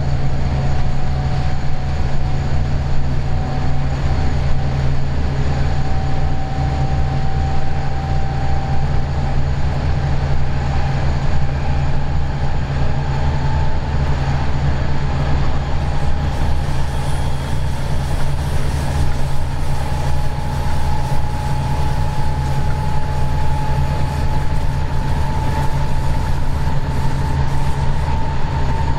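Vossloh G 1206 diesel-hydraulic locomotive running under way, heard from its cab: a steady low engine drone with a whine that climbs slowly in pitch.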